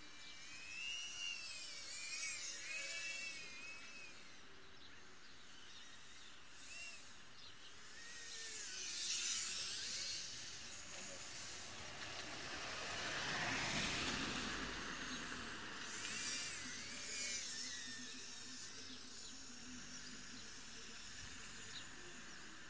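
Tiny whoop FPV quadcopter flying, the high whine of its small motors rising and falling in pitch with the throttle. It has three louder, harsher surges.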